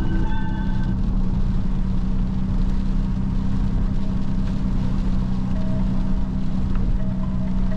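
Cabin noise of a 2008 Ford Fusion with its 3.0 Duratec V6 driving on wet roads: a steady low engine hum under an even hiss of tyres and road.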